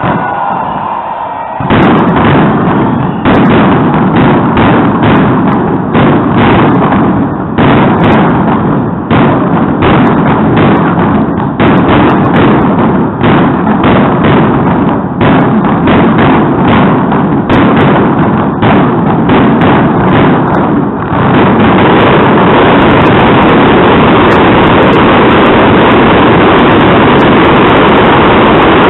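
Fireworks display: a rapid, dense string of bangs and crackling shell bursts starts about two seconds in. After about twenty seconds the bursts merge into one continuous loud wall of overlapping blasts, the finale of the show.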